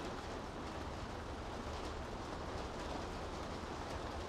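Steady rain falling on city streets, an even hiss with a low, constant rumble of the city underneath.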